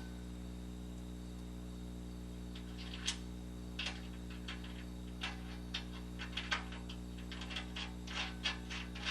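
Scattered light metallic clicks and taps of a carriage bolt and its hardware being fitted by hand to a steel skid plate, starting about three seconds in, over a steady low hum.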